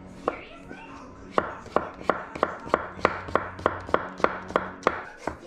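Chef's knife slicing an English cucumber into strips on a wooden cutting board: one cut shortly after the start, then a steady run of knife strokes on the board, about three a second.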